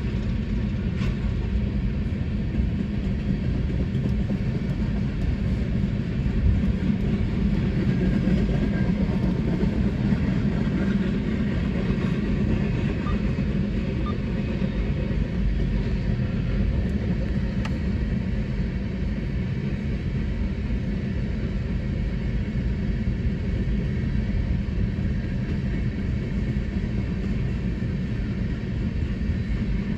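An empty coal train's open-top gondola cars rolling past on the track: a steady rumble of steel wheels on rail.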